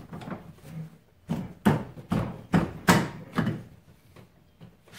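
A quick series of about six sharp knocks, roughly two a second, starting about a second in, from parts and tools being worked during reassembly of an ATV wheel hub and axle.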